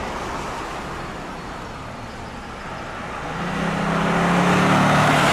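Motor vehicle noise: a rushing road sound that fades, then swells again as an engine hum builds over the last two seconds, like a vehicle approaching.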